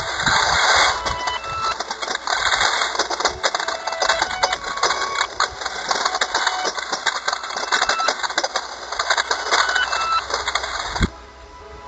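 Industrial twin-shaft shredder crushing a plastic soda bottle, the audio played backwards: dense crackling and grinding with many sharp cracks over the motor's running, dropping off suddenly near the end.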